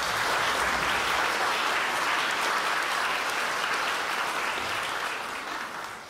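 Audience applauding, steady and then dying down near the end.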